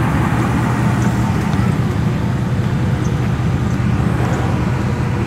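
Steady engine and road noise of a car on the move: a constant low hum that holds the same pitch throughout.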